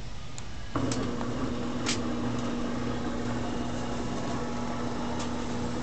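The electric motor of a rotating-drum (trommel) worm-casting screener switches on about a second in and then runs with a steady hum, with a few light clicks near the start.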